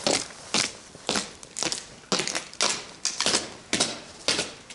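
Footsteps on concrete steps and floor, even and sharp at about two steps a second.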